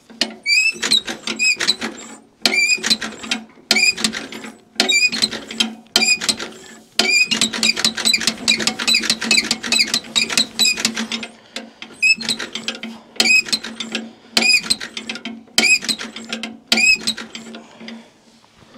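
1950 Farmall Cub's starter cranking its four-cylinder engine in about ten bursts with short pauses, the engine turning over fast but not firing because the ignition switch is still off. Each burst carries a steady starter whine and a repeating high squeak.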